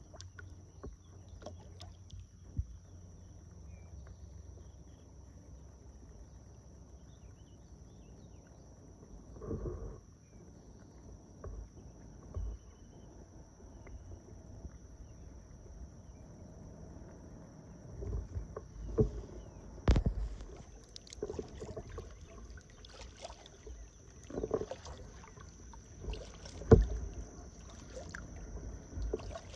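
Kayak paddle strokes dipping and splashing in calm river water, coming irregularly a few seconds apart, with the sharpest splash near the end.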